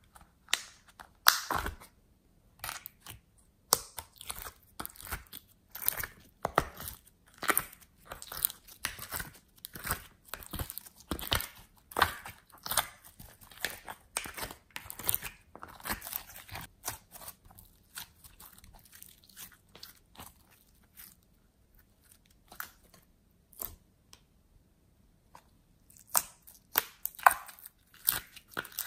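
Glossy slime being pulled and squeezed out of plastic containers by hand: irregular sticky crackles and squelches, dense at first, sparse for a few seconds, then busy again near the end.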